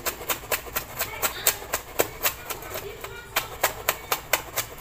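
Kitchen knife chopping garlic cloves on a wooden cutting board: quick, even knocks of the blade on the board, about four a second.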